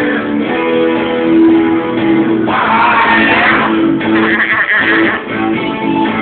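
Music: a song with guitar playing.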